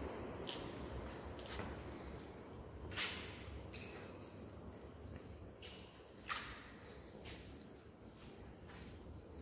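Crickets chirping as a steady high-pitched trill, with a few scattered soft knocks; the sharpest comes about three seconds in and another about six seconds in.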